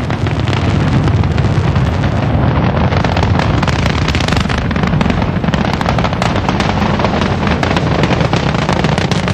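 Space Shuttle Columbia's solid rocket boosters and three main engines firing during ascent: a steady, deep rumble shot through with dense crackling.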